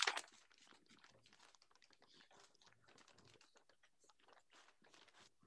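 Faint, irregular rustling and crinkling of wrapping paper as a wrapped item is unwrapped by hand.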